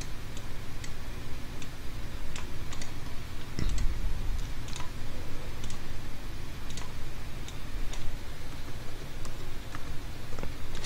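Computer mouse and keyboard clicking: a dozen or so sharp, irregularly spaced clicks over a steady low hum.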